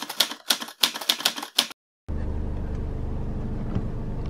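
A quick run of typewriter key clicks, about ten strokes in under two seconds. Then, after a brief gap, a steady low hum inside a car.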